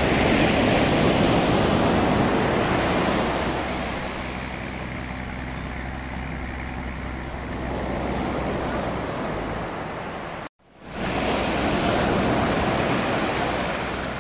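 Surf breaking and washing up a sandy beach around a grounded yacht's hull, swelling and easing three times, with a faint low steady hum underneath. The sound cuts out abruptly for a moment a little after ten seconds in.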